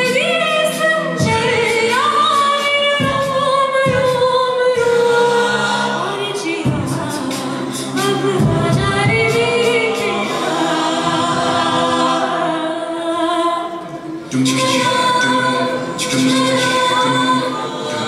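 An a cappella vocal group singing in several-part harmony, with sustained and gliding voices over a low bass part.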